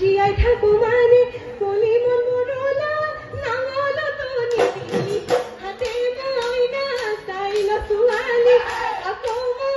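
Live Bihu music: a Bihu song with a wavering, sustained melody line over dhol drum beats, with fast high ticking from taal cymbals in the second half.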